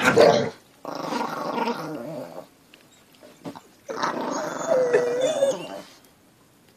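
A dog growling in two long, rough growls, the second with a higher whining tone running through it.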